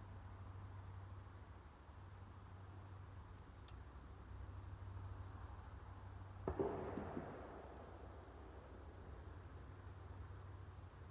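Crickets chirping steadily in the evening, faint high tones over a low hum. About six and a half seconds in, a single sharp knock followed by about a second of rustling stands out as the loudest sound.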